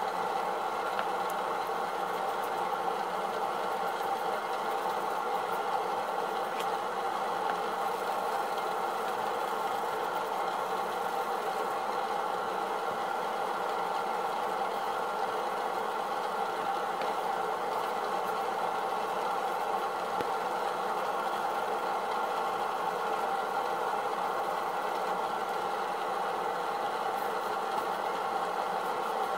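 A steady machine drone, like a motor or fan running, unchanging in pitch and level.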